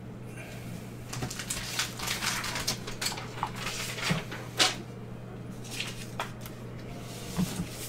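Trading cards in plastic sleeves and toploaders handled by gloved hands: scattered crinkles and clicks of plastic, over a steady low electrical hum.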